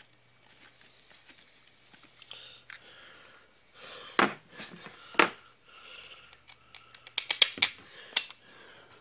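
Small metal parts and hand tools clicking and clinking on a workbench while engine bolts are being started into a chainsaw frame. There are two sharp knocks about four and five seconds in, then a quick run of clicks in the last two seconds.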